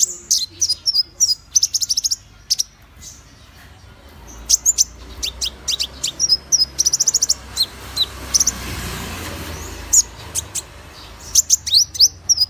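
A konin songbird calling: very high, rapid chirps, short trills of repeated notes and quick sweeping whistles in bursts, from a lure recording meant to prompt konin birds to sing. A soft rushing noise swells and fades about two-thirds of the way through.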